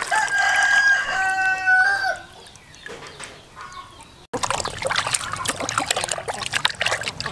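A rooster crows once, a call of about two seconds that drops in pitch at its end. A little past four seconds the sound cuts out for an instant, and hands then splash and rub a whole fish in a basin of water.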